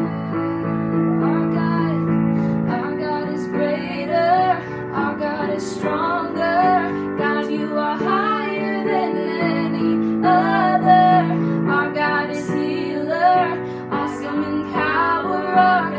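Worship music: a woman singing with sustained, wavering notes over a steady accompaniment of keyboard and guitar chords.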